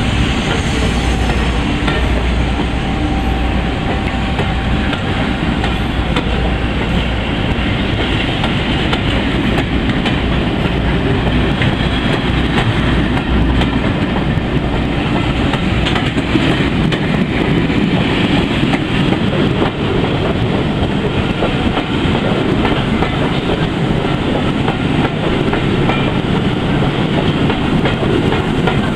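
Passenger coaches of a departing train rolling past, their wheels clattering over the rail joints in a steady rumble.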